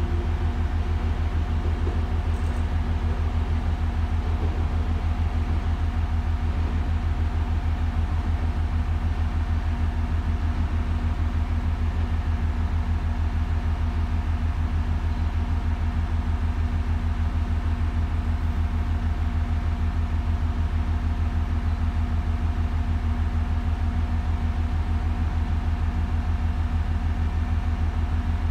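A steady, loud low engine hum with a fast, even throb, running unchanged throughout, like an engine idling close by.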